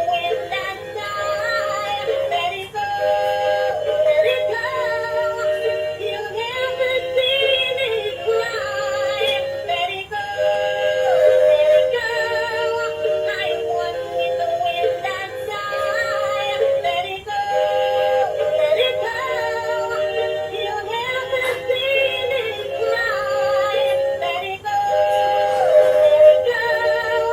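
Electronic song with synthesized singing, the kind a dancing doll toy plays, with a short melodic phrase repeating about every seven seconds.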